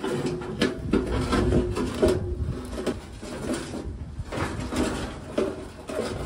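A heavy cabinet table saw wheeled over dirt and gravel, its metal body rattling and rumbling with several knocks as it bumps along.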